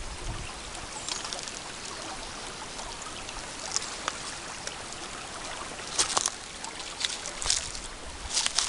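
Steady trickle of running water, with a few short, sharp noises in the second half.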